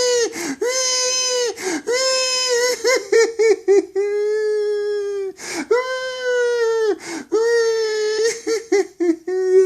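A grown man crying like a baby: a run of drawn-out, high-pitched wails, each about a second long, broken by sharp gasping breaths. Twice the wails break into quick, stuttering sobs.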